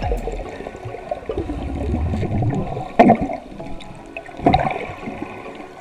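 Water churning and rushing around a camera held underwater while snorkelling, with two sharp, louder rushes about three and four and a half seconds in. Backing music plays faintly underneath.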